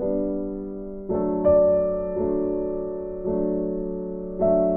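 Background music: gentle piano chords, each struck and left to fade, a new chord about every second.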